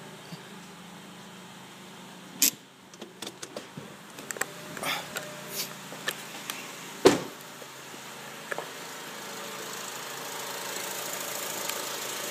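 2007 Honda Accord's engine idling steadily as it warms up after an oil change, with scattered clicks and knocks and one loud thump about seven seconds in; the running sound grows slowly louder near the end.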